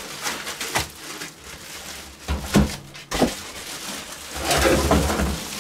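Handling noise from unpacking a desktop PC: foam packing rubbing, a plastic bag crinkling, and a few dull knocks as the case is moved and set down, loudest near the end.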